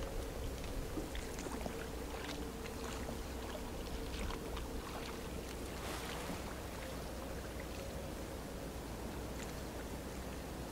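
Scattered light knocks and clicks of gear being handled in a small inflatable boat, over a faint steady hum.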